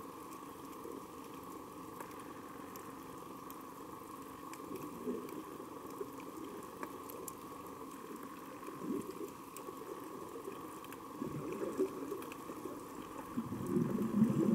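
Underwater reef ambience: a steady faint hum with scattered faint clicks, and bubbling gurgles now and then that grow louder near the end.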